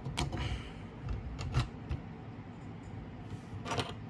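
Plastic parts of a Transformers Rhinox action figure and its gun accessory clicking and rattling lightly as the gun is pressed into the figure's hand: a handful of short clicks scattered through.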